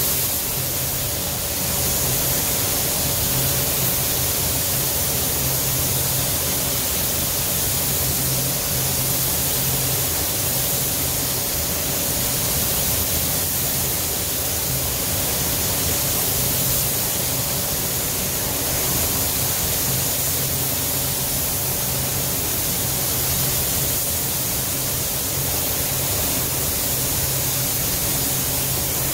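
Gravity-feed paint spray gun hissing steadily as it lays on a coat of clear over the basecoat; the hiss comes on at once when the trigger is pulled and holds at an even level.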